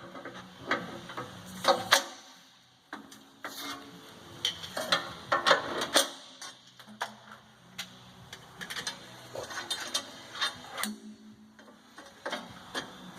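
Hand tools clicking and clanking on the metal slide and bolts of a roller mill as the front slide is positioned and its bolts tightened: irregular sharp metallic clicks and knocks.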